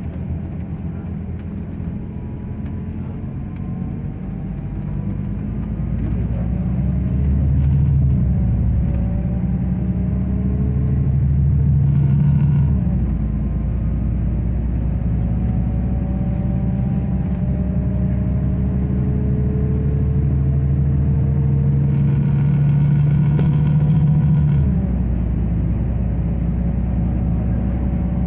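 Bus engine and road noise heard from inside the passenger cabin while the bus drives along, a steady low rumble with a faint whine that rises slowly in pitch several times.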